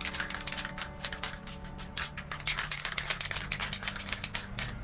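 Aerosol spray paint can being shaken, its mixing ball rattling in quick, irregular clicks, with faint background music underneath.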